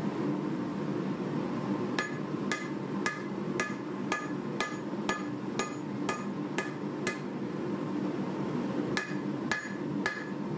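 Hand hammer striking a red-hot 1095 steel knife blade on an anvil while forging: a run of about eleven ringing blows, roughly two a second, then a pause and three more blows near the end.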